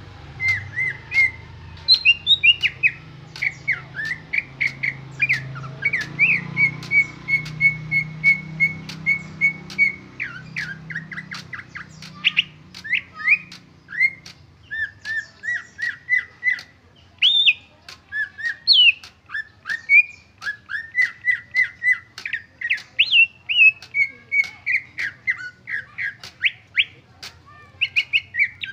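Male green leafbird (cucak ijo) singing its own song without mimicry: a continuous fast run of sharp whistled notes and chirps. Some notes are repeated rapidly on one pitch and others slide up or down.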